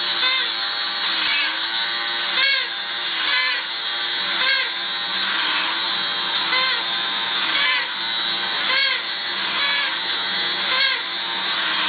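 Battery-operated toy bear playing its toy accordion: a reedy, wheezing chord that wavers down and up about once a second as the bellows are pumped, over the whirr of the toy's small electric motor.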